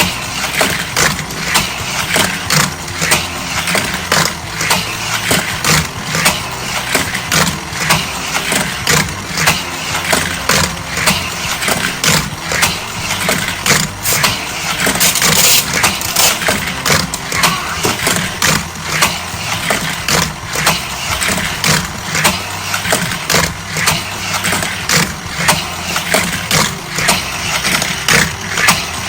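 Hot Wheels Power Shift motorized race track running: small die-cast cars clatter through the plastic track in quick, irregular clicks, over the set's electronic engine sound effects.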